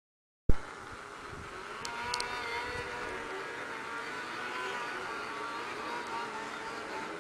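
Silence, then about half a second in a sharp click as the sound cuts in, followed by an Arctic Cat snowmobile engine running steadily, growing a little louder over the next couple of seconds as it approaches.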